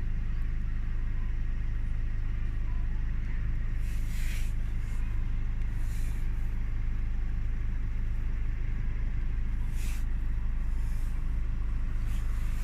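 Opel Astra K engine idling steadily at low revs, a constant low-pitched running sound that the owner considers abnormally loud. A few brief hisses come over it.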